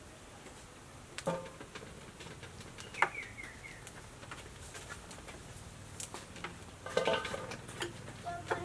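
Yard-long beans snapped by hand into short pieces, a few crisp snaps, with a clink and brief metallic ringing about seven seconds in as pieces drop into a stainless steel basin. A bird gives a short run of quick chirps about three seconds in.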